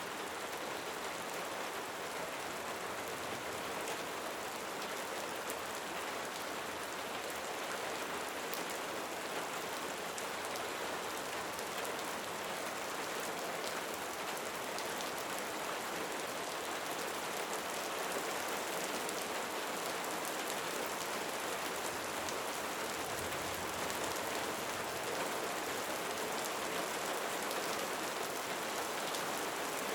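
Steady rain falling: an even hiss of rain with scattered individual drops ticking through it.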